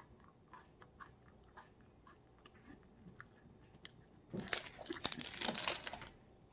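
Chewing a thin cookies-and-cream coated biscuit stick: soft scattered clicks of chewing at first, then, a little over four seconds in, about two seconds of loud crisp crunching as it is bitten and chewed.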